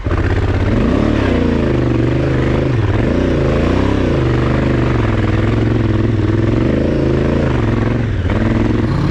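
Honda Africa Twin DCT's parallel-twin engine pulling the bike up a rutted dirt climb, revs rising and falling with the throttle, with a brief drop about eight seconds in.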